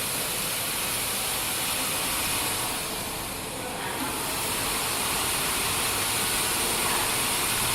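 Machinery on a cable extrusion line running: a steady hissing rush with a low rumble, easing slightly about three seconds in.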